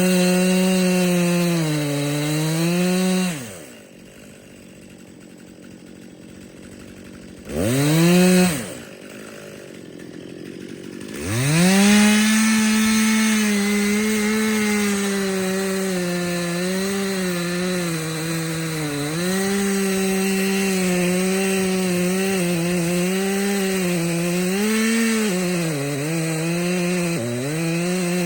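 Chainsaw cutting bitternut hickory: running at full throttle under load, dropping to idle after about three seconds, a short rev near eight seconds, then revving back up about eleven seconds in and cutting steadily, its pitch sagging now and then as the chain bites into the wood.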